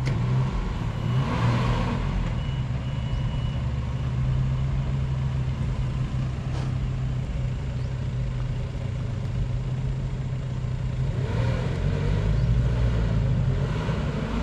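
A 4x4 SUV's engine running at low revs as it crawls over rutted dirt, with louder surges about a second in and again near the end.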